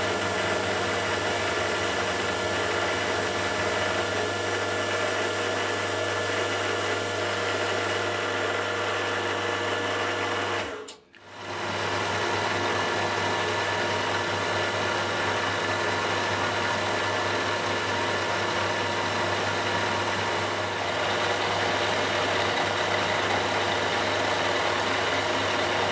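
Warco Super Major milling machine running, its end mill cutting along the edge of a 10 mm aluminium plate: a steady hum and whine with the noise of the cut. It breaks off for a moment about eleven seconds in, then carries on.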